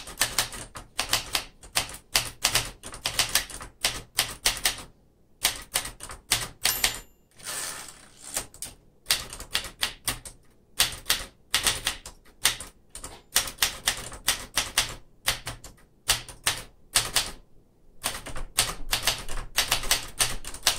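1967 Smith Corona Corsair manual portable typewriter being typed on: quick runs of sharp typebar strikes with short pauses between them, and a brief rasping slide about seven and a half seconds in.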